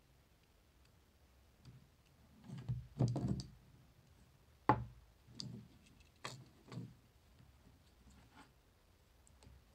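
Clicks and knocks of small tools and plastic parts being handled on a wooden table: an oral irrigator's casing, a pen-style electric screwdriver, and driver bits taken from a plastic bit case. A handful of separate knocks, the loudest a sharp click about five seconds in.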